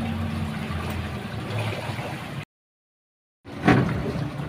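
Motorboat engine running steadily. It cuts off abruptly to about a second of silence, then the boat noise returns with a sharp knock near the end.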